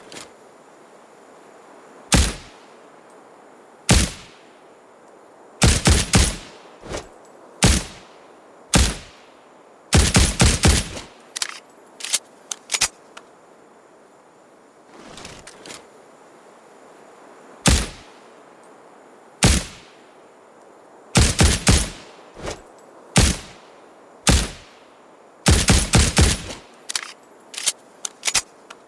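Suppressed Ruger Security-9 9mm pistol firing. Single shots and quick strings of several rounds come in bursts with pauses between, and a few fainter clicks follow some strings.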